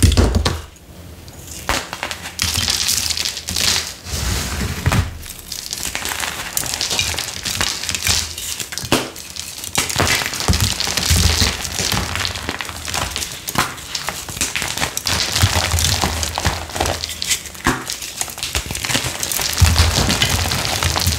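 Dyed gym chalk blocks crushed and crumbled by hand: a dense run of crisp crunching and crackling, with sharper cracks and a few dull thumps as chunks break and fall apart.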